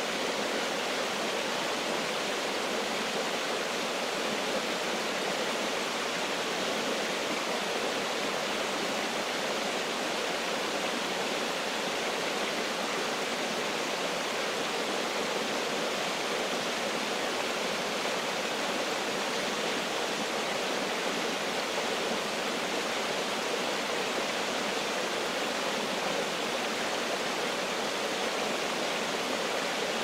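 A small woodland waterfall and the shallow stream below it running over rocks: a steady, even rush of water that neither rises nor falls.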